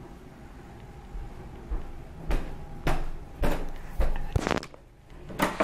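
Clicks and knocks of a hotel room door's handle and latch being worked to open the door: about half a dozen short sharp strokes at uneven spacing, starting a little over two seconds in.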